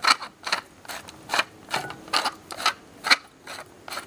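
Hand-twisted spice mill grinding seasoning, a short crunching click with each twist, about two to three a second.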